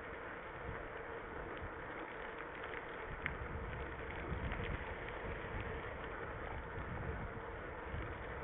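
Mountain bike riding along a dirt and gravel track: steady wind rushing on the head-worn camera's microphone with the rumble of tyres on gravel, and a few small clicks and rattles, one sharp click about three seconds in.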